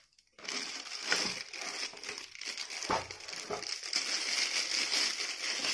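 Clear plastic wrapping crinkling and rustling as a telephone handset is unwrapped and handled, with a few sharper clicks; it starts about half a second in.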